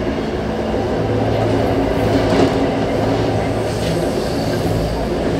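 Commuter rail train running along the track: a steady rumble with wheel and track noise that holds even throughout.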